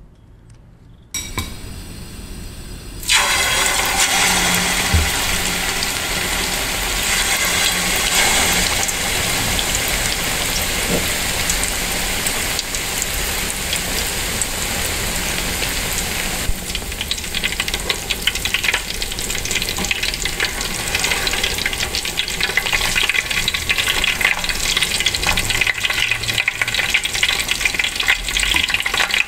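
Chicken breast skewers deep-frying in hot oil. A loud sizzle starts abruptly about three seconds in and turns more crackly and spitting about halfway through.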